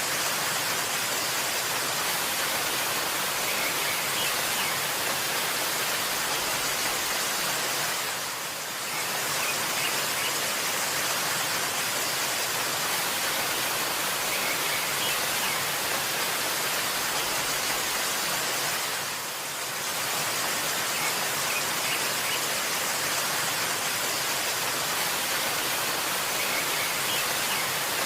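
Steady rushing water of a waterfall, a dense even hiss that dips briefly twice. Faint bird chirps come through a few times.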